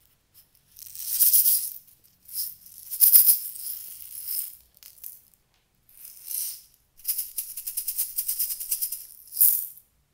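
Tiny seed beads shaken out of a plastic bulb-shaped bottle, rattling in short bursts, then in a quick run of rapid shakes near the end as they pour into a hand.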